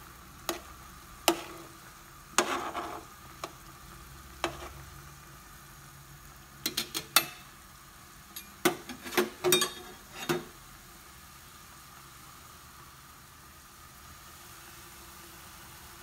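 Metal utensil knocking and scraping against a cooking pot while stirring fish in boiling broth: a scatter of sharp clinks through the first ten seconds or so, then only the steady bubbling of the boil.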